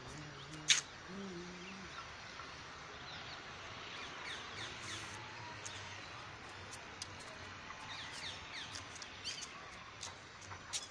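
Birds chirping outdoors: many short, quickly falling chirps, thickest through the middle and latter part, over a steady background hiss. A single sharp click less than a second in is the loudest sound.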